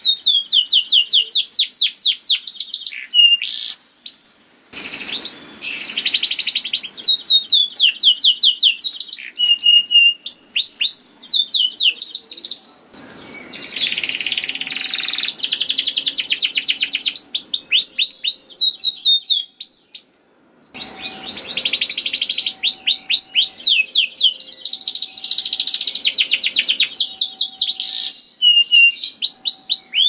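Canary singing a long, continuous song of fast trills and rolls made of rapidly repeated downward-sweeping notes. The song breaks off briefly three times.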